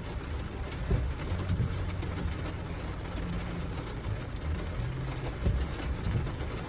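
Rain on a Lexus NX 350 with its rain-sensing windshield wipers sweeping, heard from inside the cabin over a low, wavering hum.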